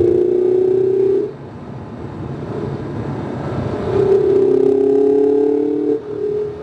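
Hankook RS4 tyres on a 2019 Mazda MX-5 RF squealing at the grip limit through corners at track pace, heard from inside the car over its engine. The steady squeal cuts off a little over a second in and comes back about four seconds in, holding until near the end.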